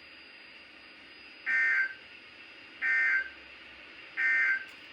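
NOAA Weather Radio EAS/SAME end-of-message data bursts: three short, harsh digital screeches about a second and a half apart, marking the end of the tornado watch alert.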